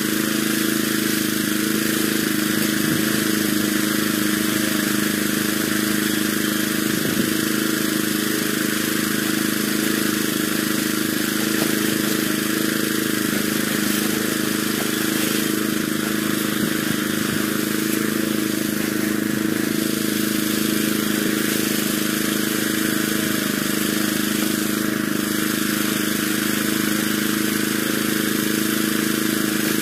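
Small stationary engine on a wooden stand running steadily at one constant speed.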